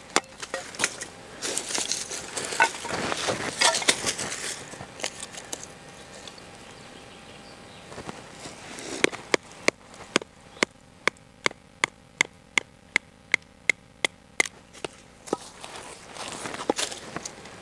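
A wooden baton striking the spine of a Blind Horse Knives Bushcrafter knife as it splits knotty firewood. First comes crackling and splintering of the wood; about nine seconds in, a quick run of sharp knocks follows, about three or four a second, for several seconds.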